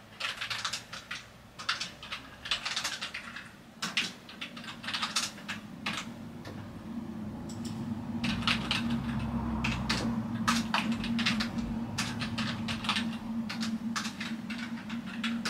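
Computer keyboard typing in irregular bursts of keystrokes with short pauses between them. A low steady hum comes in about halfway through.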